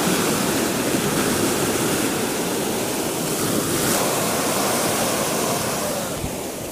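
Sea surf breaking and washing over the shallows at the shore, a steady rushing wash that eases slightly near the end.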